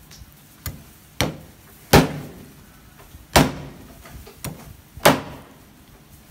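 Large kitchen knife chopping through raw pork ribs onto a round wooden chopping board: six sharp chops, three of them heavy blows about a second and a half apart, each ringing briefly.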